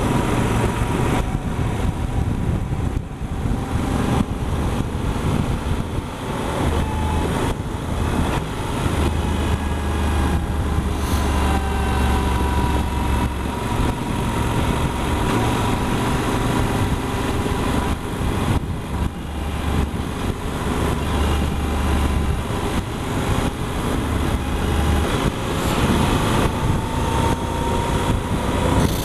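Yamaha Super Ténéré's parallel-twin engine running on the move at road speed, mixed with steady wind rush and low buffeting on the helmet-mounted microphone. A faint engine whine drifts slightly up and down in pitch.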